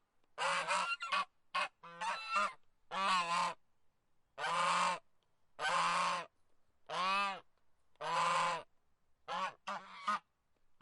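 Goose honking: a run of quick short honks, then five longer, drawn-out honks about a second apart, then a few short honks again near the end.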